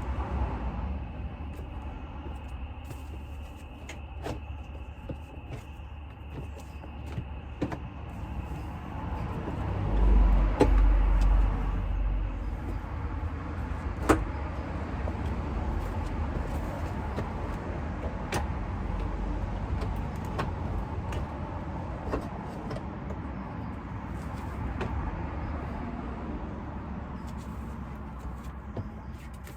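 Scattered sharp clicks and knocks of plastic clips on a Porsche 997's front bumper cover being worked free with a hooked zip tie, over a steady low rumble, with a heavier low rumble and knock about ten seconds in.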